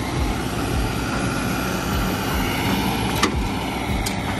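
Heavy diesel engine running steadily, with a single sharp click about three seconds in.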